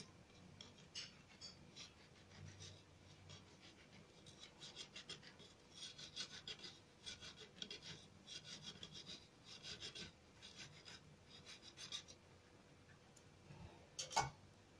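Faint, quick rasping strokes of a knife sawing through a pineapple ring, the blade scraping on the plate, coming in runs for several seconds and then stopping. A single sharp click near the end.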